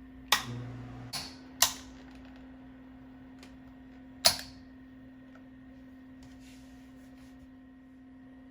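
Four sharp clicks of switches on an HVAC test rig, the first followed by a brief low buzz, over a steady electrical hum.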